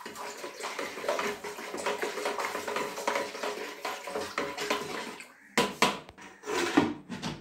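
Salt water being stirred by hand in a plastic bucket, swishing and sloshing steadily. About five seconds in the stirring stops and a few sharp clicks and knocks follow as the electrode holder and wires are handled.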